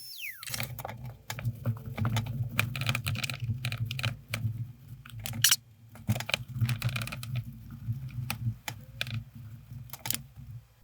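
Many irregular sharp clicks and clinks of small hard objects over a steady low hum. A high whine glides down and stops at the very start.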